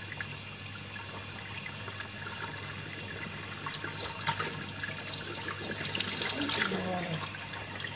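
Water running steadily from a kitchen tap into a sink, an even hiss.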